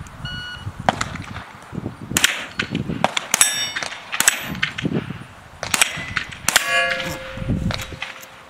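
A string of about ten gunshots fired at steel plate targets, the hits ringing the steel with a metallic clang; the last ring hangs on near the end.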